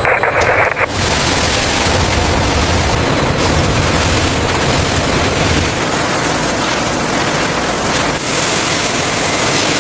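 Loud, steady rushing noise with a low rumble underneath. It changes abruptly about a second in and again shortly before the end.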